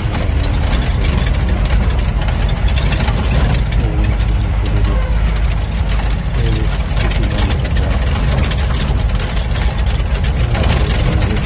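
Off-road jeep running steadily under way, a heavy low engine drone with constant rattling and jolting over the rough track.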